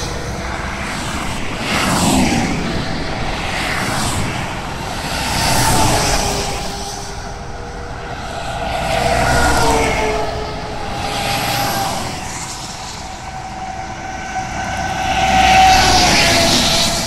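Heavy trucks and cars passing at motorway speed one after another: tyre and engine noise swells and fades about four times, and the tone drops as each vehicle goes by.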